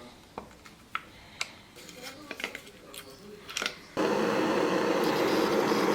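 Small clicks and taps from handling bicycle brake parts. About four seconds in, a loud steady rubbing hiss starts as a brake part is rubbed to clean off an oily film that makes the brakes squeak.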